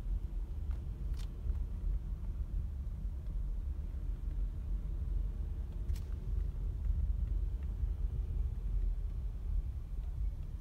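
Low, steady rumble of a car heard from inside the cabin, engine and road noise, with two faint clicks, one about a second in and another about six seconds in.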